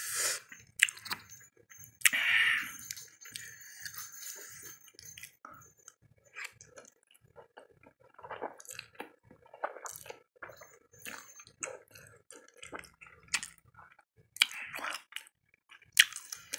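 A person eating instant noodles: a loud slurp about two seconds in, then chewing with many short wet clicks, and another slurp near the end.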